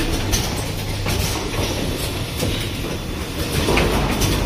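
Automatic rapid test kit assembly machine running: a steady low hum with repeated clicks and knocks from its moving parts.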